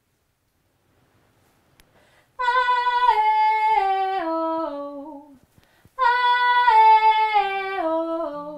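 A woman singing unaccompanied: two slow phrases, each stepping down through several held notes, with a short break between them.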